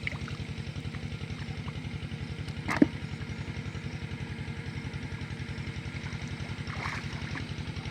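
A small engine running steadily at idle with an even putter, and one sharp knock about three seconds in.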